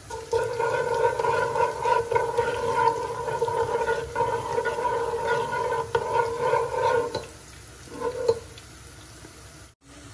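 Cumin seeds crackling faintly in hot oil in a pan, under a louder steady hum on one pitch that breaks briefly about four seconds in, stops about seven seconds in and returns briefly near the eight-second mark.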